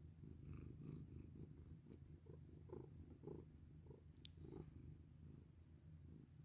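Domestic cat purring quietly and steadily while being stroked, with faint rustles of fur under the petting hand.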